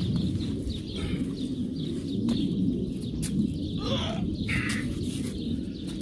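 Birds chirping over a steady low outdoor rumble, with a few sharp clicks.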